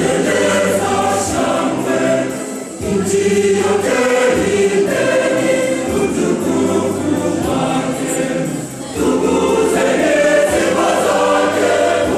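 A large choir singing a gospel song, with two brief pauses between phrases, about two and a half seconds in and again near nine seconds.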